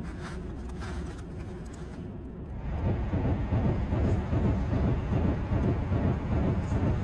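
A train passing on the tracks: a low rumble that swells sharply louder about three seconds in, then holds as a steady rushing clatter of wheels and running gear.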